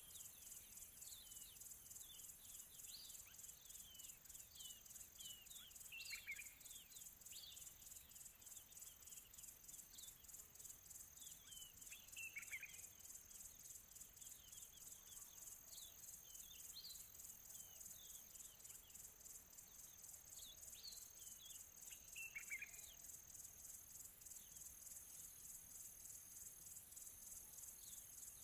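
Faint steady high-pitched insect trill, pulsing several times a second, with a short falling bird call every few seconds.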